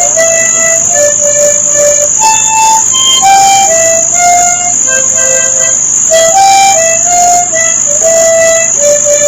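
Soundtrack music: an instrumental melody of held notes moving step by step, over a steady high-pitched whine.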